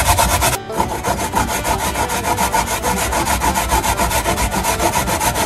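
Daikon (white radish) being grated on a stainless steel grater: a steady rasping of quick, even back-and-forth strokes, with a brief break about half a second in.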